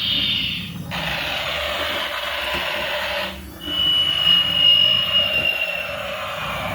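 Small electric motor and plastic gears of a battery-powered toy vehicle whirring. The sound cuts out briefly about three and a half seconds in, then starts again with a thin high whine that slowly falls in pitch.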